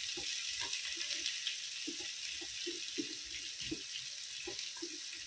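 Sliced onions sizzling in hot oil and ghee in a cooking pot: a steady hiss with small scattered bubbling pops.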